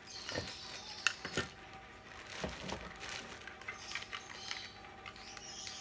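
Plastic packaging bags rustling and crinkling as small accessories are handled, with a few light clicks and taps of plastic parts against the table.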